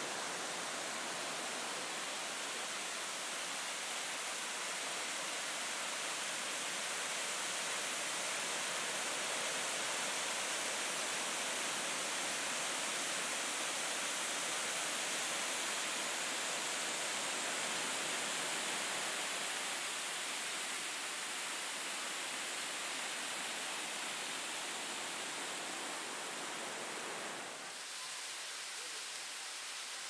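Waterfall pouring over a rock ledge: a steady, dense rush of falling water. Near the end it switches abruptly to a slightly quieter, thinner rush of water.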